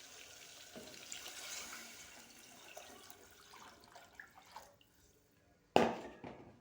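Water running and splashing, fading away after about four seconds, then one loud sharp knock near the end.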